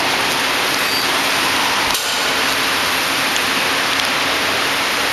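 Wafer flow-wrap packing machine running: a steady, even hiss with a low hum, and a single click about two seconds in.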